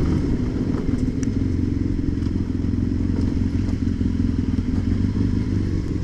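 BMW F800 ST's parallel-twin engine running steadily as the bike rides along, heard from on the bike.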